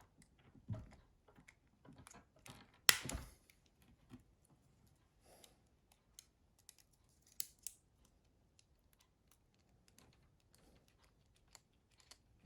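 Faint, scattered small clicks and taps of a precision screwdriver and plastic parts as screws are driven into a Nokia 6060 phone's housing, with one sharper knock about three seconds in.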